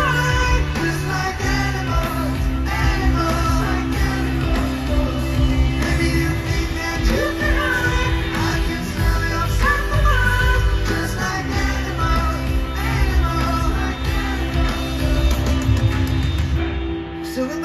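Live pop-rock band playing over a loud concert sound system, with a male lead singer's voice over drums, bass and guitar, recorded from the crowd.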